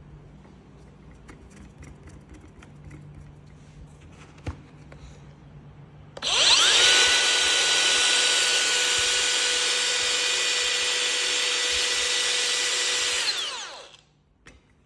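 Makita GA056G cordless 40V flat head angle grinder switched on about six seconds in: it spins up with a rising whine, runs steadily at speed for about seven seconds, then winds down to a stop. Before it starts there is light handling noise and a click.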